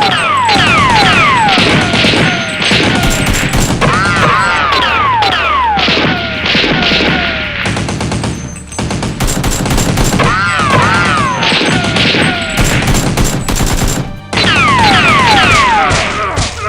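Rapid gunfire sound effects in long overlapping bursts, many shots with a quick falling whistle like a sci-fi blaster, over background music. The bursts pause briefly twice.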